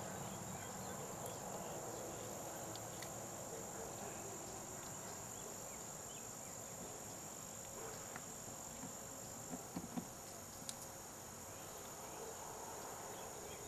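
A steady, high-pitched chorus of insects, with a few faint clicks and taps about two-thirds of the way through from the catfish being handled on a plastic trash bag.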